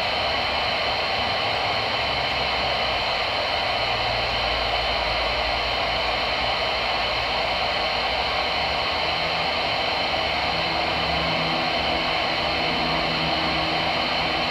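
Steady static hiss from a Voyage CB radio's speaker on an open AM channel, with no voice coming through. A faint low hum comes and goes under the hiss.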